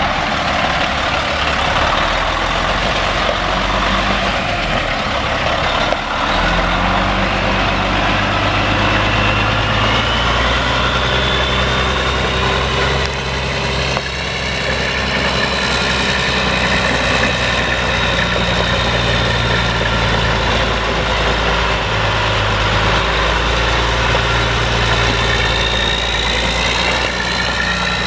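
Caterpillar C12 inline-six turbo diesel engine of a Sterling L9500 semi truck running steadily at idle. A high whine rises in pitch about a third of the way through, then holds.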